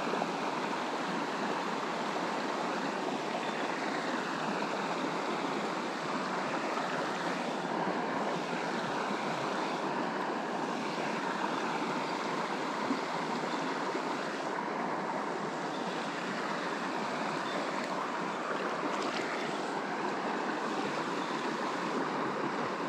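Steady rush of a river's current flowing over stones, an even wash of water noise that does not change.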